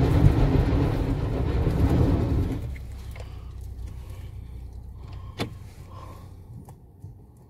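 A vehicle's engine and tyres rumbling loudly, heard from inside the cabin as it pulls over loose gravel, dropping away abruptly about two and a half seconds in to a quiet low hum. A single sharp click comes a few seconds later.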